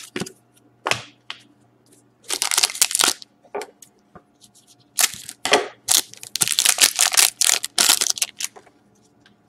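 Foil wrapper of an Upper Deck Artifacts hockey card pack crinkling and tearing as it is opened by hand, in several bursts, the longest near the end.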